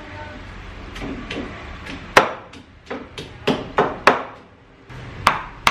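Stone pestle pounding peeled shrimp and shallots in a stone mortar to a paste: a run of sharp knocks that begins about two seconds in, with a short pause before the last two.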